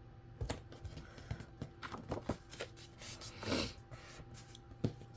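Handling of paper cardstock and small craft pieces at a table: scattered light taps and clicks, with a brief paper rustle about three and a half seconds in.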